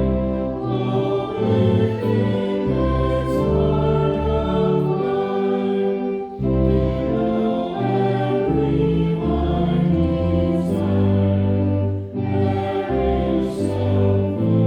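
Church music with choral singing: sustained chords over a bass line that changes note about once a second.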